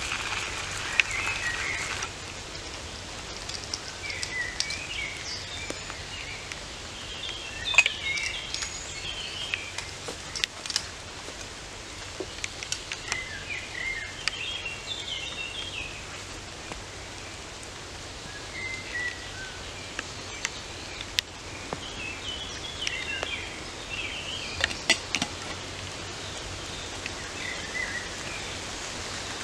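Small birds singing in short chirping phrases over a steady hiss of outdoor wind and light rain, with a few sharp clicks and taps scattered through.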